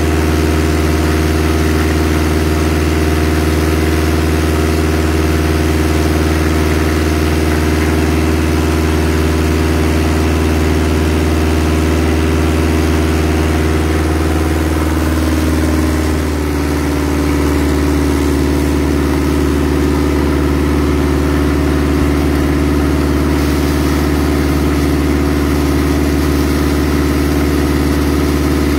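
An engine running steadily under load, with the hiss of a high-pressure water jet blasting seed oysters off a boat deck. About halfway through, the engine's pitch sags slightly and then holds.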